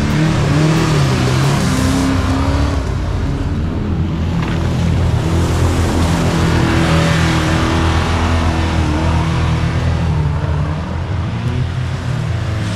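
Modified off-road 4x4's engine revving hard as the vehicle churns through a deep muddy rut. The revs rise and fall early on, then hold high and fairly steady for a few seconds.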